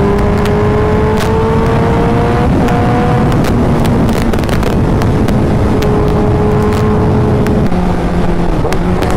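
Honda Fireblade's inline-four engine heard from the rider's position while cruising on the open road. The engine note rises slowly for the first couple of seconds, then holds steady and dips near the end, under heavy wind noise on the microphone.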